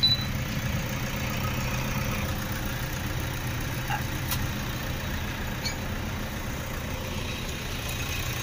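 A machine running with a steady low hum, with a few faint light taps over it.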